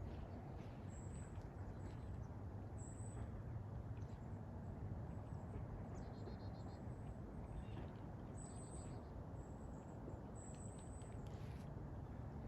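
Quiet woodland ambience: a steady low rumble under short, high bird chirps every second or two, with a brief rapid trill about six seconds in and again just before nine seconds.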